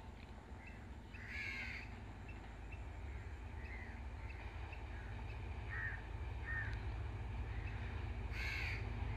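A crow cawing, two loud harsh calls about a second in and near the end, with a few smaller bird chirps between. Underneath, the low rumble of an approaching S13 diesel multiple unit grows steadily louder.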